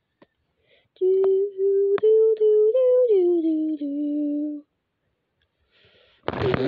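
A person humming a short tune of a few held notes, the last ones stepping lower before it stops. Near the end a loud rush of noise starts.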